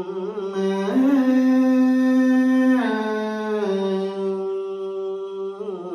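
Vietnamese Buddhist devotional song: a singer holds long, drawn-out notes with vibrato over a steady lower sustained note. The pitch steps up about a second in and back down near the three-second mark.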